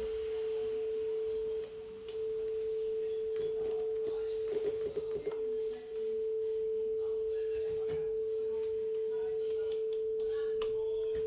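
A steady pure sine test tone played through a Sansui AU-X701 amplifier as it is tested. The tone dips in level briefly about two seconds in and again around six seconds, and a few faint clicks come near the end.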